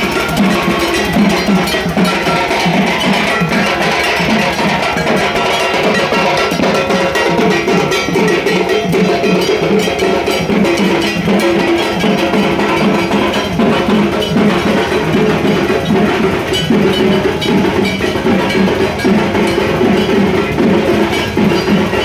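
Loud procession music from drums and clanging metal percussion, beaten in a fast, steady rhythm without a break.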